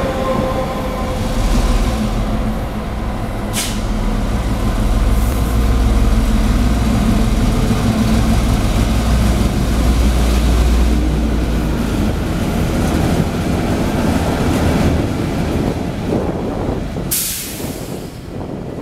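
Taiwan Railways freight train hauled by two locomotives pulling out of a station: a steady heavy low rumble with faint whining tones, a brief sharp hiss about three and a half seconds in and a louder burst of hiss near the end.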